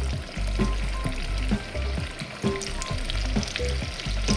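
Chicken pieces sizzling and crackling as they fry in hot oil in a pan, with many small pops throughout.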